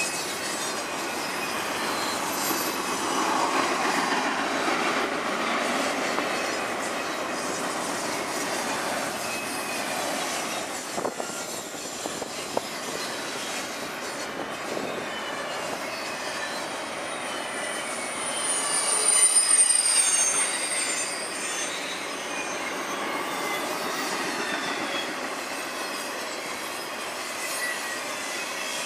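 Double-stack intermodal freight cars rolling past on steel rails: a steady rumble of wheels on track with a few sharp clicks, and a high wheel squeal that swells about two-thirds of the way through, the loudest moment.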